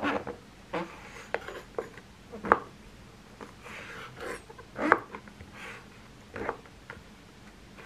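A kitchen knife slicing king oyster mushrooms on a wooden cutting board. The blade knocks on the board at an uneven pace, with soft scraping slides as it cuts through the mushroom, and the two loudest knocks come about two and a half and five seconds in.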